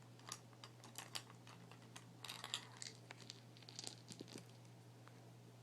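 Soft, irregular tapping and clicking as small objects are handled, with a little crinkling, over a faint steady hum.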